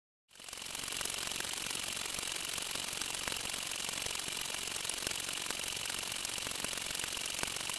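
A homemade LEGO Technic wave generator running steadily, its motor and gears clattering, while waves slosh and splash in a small glass tank. The sound starts abruptly just after the beginning.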